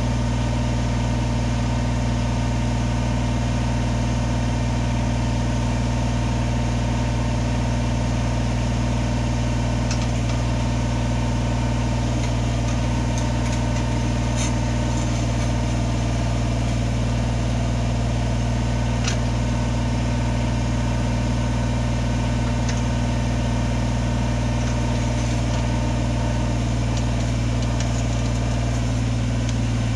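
Diesel engine of a compact work machine idling steadily, with no revving, and a few faint clicks over it.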